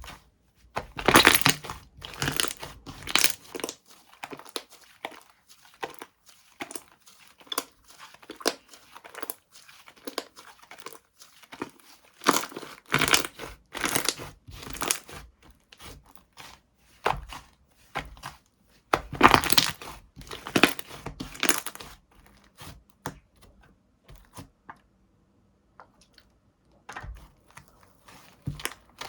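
Slime being pressed, squished and stretched by hand, giving crackling, popping air-pocket sounds in groups of loud bursts with softer scattered clicks between and a short quiet pause near the end.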